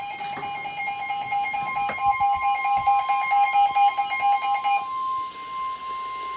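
The steady single-pitch warning alarm tone of an Emergency Alert System weather alert broadcast, which signals that a warning announcement follows. Until almost five seconds in, a rapidly pulsing, buzzy alert beep sounds over it; then the beeping stops and the steady tone carries on alone to just before the end.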